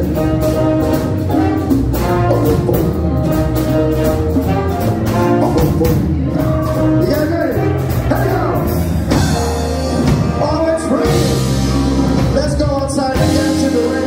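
Live big band swing music: trumpets, trombone and saxophones playing over drums and piano, with a steady beat.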